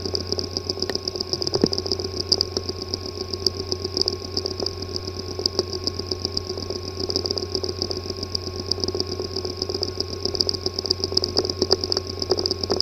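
Hard disk drive with a physically damaged disk assembly, running with a steady buzz and a fast, dense ticking over it.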